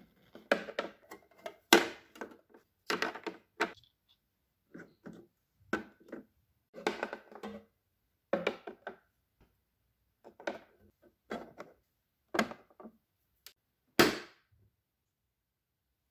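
Plastic illy coffee capsules being set one by one into a clear acrylic storage bin, making a string of irregular hard plastic clacks and knocks. A louder knock comes near the end.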